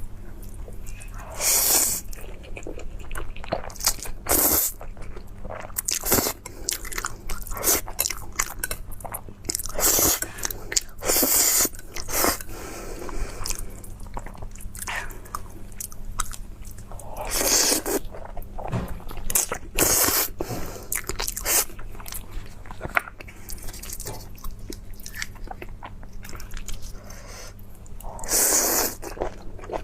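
A person eating with crunchy bites and chewing, in repeated short bursts every second or two.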